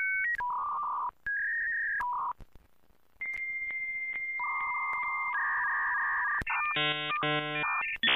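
Dial-up modem connection sound: short paired dialing tones, a pause, then a long steady high answer tone with lower tones joining it, and buzzy handshake tones near the end.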